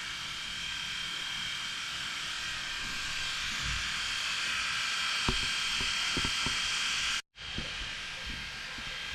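ACMER S2 laser engraver running a job: a steady fan hiss with a thin high whine, and a few soft knocks a little past halfway. The sound cuts out abruptly about seven seconds in and resumes.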